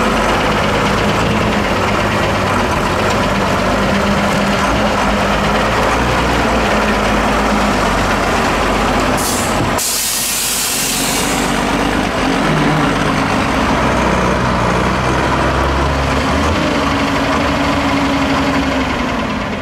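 Diesel engine of a 6x6 Mercedes-Benz off-road trials truck running under load as it crawls over rough ground, the revs rising and falling. About halfway through there is a short burst of hissing air, like an air-brake release.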